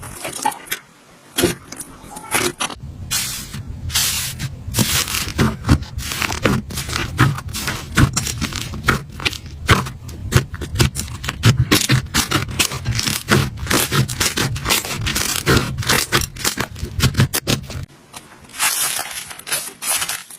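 Slime being squished and worked by hand, giving many quick, irregular crackling pops and sticky squelches.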